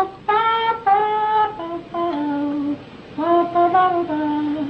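A male voice on a home demo work tape, played back in a small room, singing a wordless melody line in long held notes that step up and down in pitch, with short breaks between phrases.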